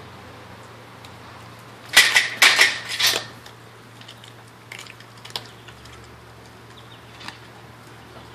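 German Shepherd chewing and crunching a raw chicken drumstick, bone and all: a burst of loud crunches about two seconds in, lasting about a second, then a few scattered single crunches.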